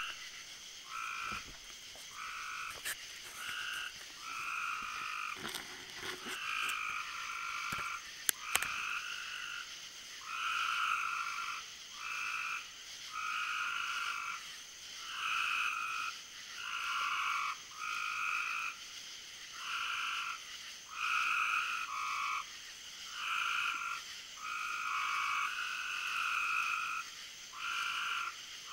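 Frogs calling: a chorus of short trilled croaks, overlapping and repeating about once a second, over a steady high hum.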